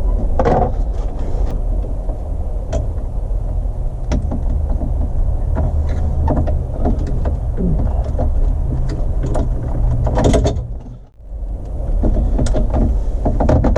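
Hands and tools working on a Jeep TJ's steering column while fitting a clock spring: many scattered small clicks and knocks of plastic and metal parts over a steady low rumble, which drops away briefly near the end.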